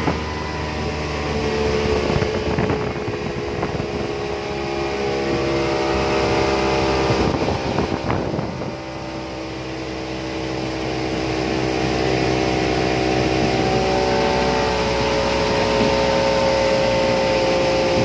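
Boat engine running steadily, with a brief dip about halfway through and the engine note rising slightly later on.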